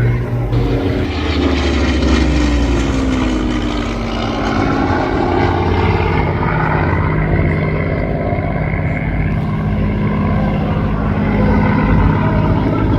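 Piston engine of a Second World War propeller warbird flying past, a steady drone whose pitch drops as it goes by about two seconds in, then runs on steadily.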